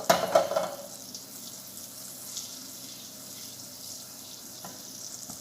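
Mustard seeds going into hot coconut oil in a pan: a short burst of crackling near the start, then a steady sizzle as the seeds heat before they begin to pop.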